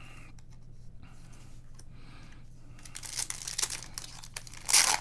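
Soft handling rustles, then from about three seconds in the crinkle and tear of a trading-card pack wrapper being ripped open by hand, loudest near the end.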